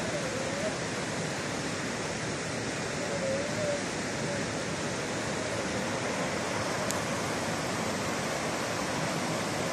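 Steady rush of a stream running over rocks in rapids.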